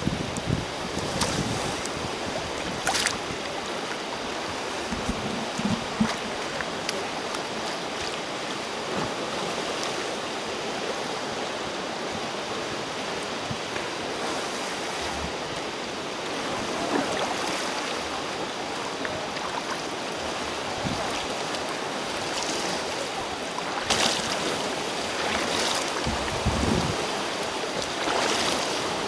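Choppy sea water washing and sloshing around a sea kayak and surf breaking against sea cliffs, with wind buffeting the microphone. A few brief sharp splashes stand out, about three seconds in and twice near the end.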